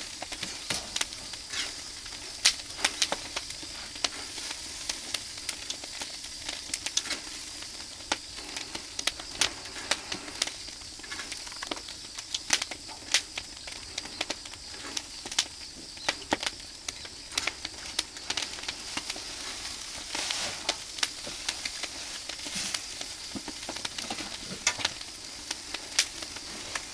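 Oak-wood barbecue fire crackling and sizzling: many sharp, irregular pops over a steady hiss.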